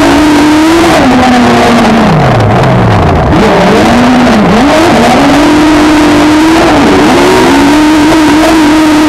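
Citroën Saxo autocross prototype's engine at racing speed, heard from on board, very loud. About a second in the revs fall away for about two seconds, then climb sharply again and hold high, with a couple of brief dips.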